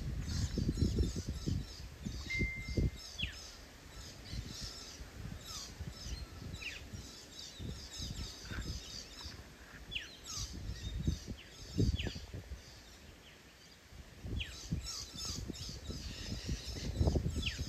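Several birds calling: quick repeated high chirps and short downward-sweeping whistles. Wind buffets the microphone in low gusts, strongest at the start and near the end.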